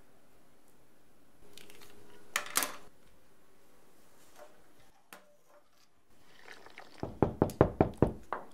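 Two sharp clicks about two and a half seconds in, then near the end a quick run of about eight sharp knocks, roughly five a second, the loudest sounds here.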